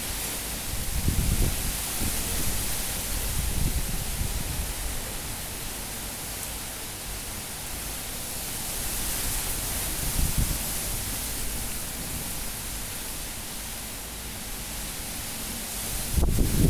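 Cyclone-force wind blowing hard, a steady rushing hiss with low buffeting gusts swelling about a second in, around four and ten seconds in, and a stronger gust near the end.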